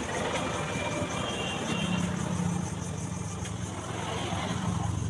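A motor running steadily with a low hum that grows a little stronger about two seconds in, over outdoor street noise.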